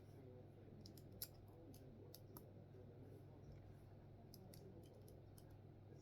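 Faint scattered clicks of plastic Lego pieces being handled and snapped together, one sharper click a little over a second in.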